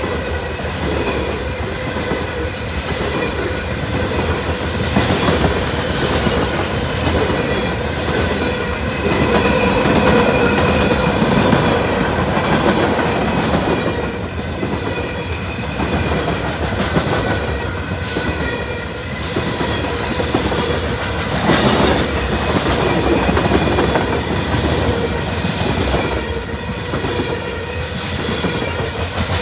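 Covered hopper cars of a freight train rolling past at speed: a continuous rumble with regular clicks of the wheels over the rail joints, and thin steady ringing tones above it.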